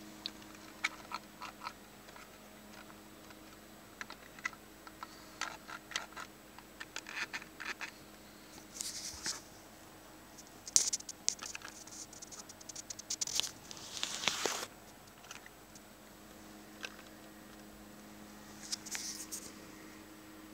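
Close handling noise: scattered clicks and short scratchy rustles, with the loudest scrapes clustered through the middle, over a faint steady hum.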